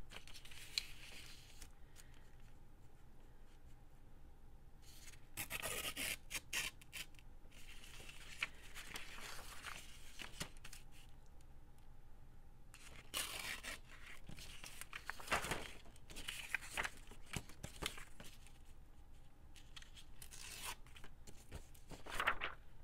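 Paper and card being handled in short spells of rustling every few seconds, with quieter gaps between.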